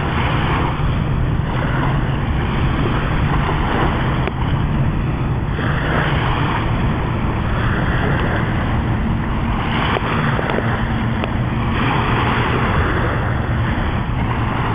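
Wind rumbling on the microphone with surf washing on the beach, the hiss of the waves swelling and fading every few seconds over a steady low hum.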